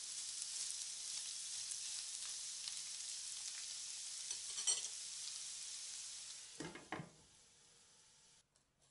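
Chicken pieces with onion, garlic and chili pepper sizzling in oil in a nonstick frying pan as they are stirred, with a light tap about halfway through. The sizzle fades after about six and a half seconds, with two knocks as the glass lid is set on the pan, and then stops.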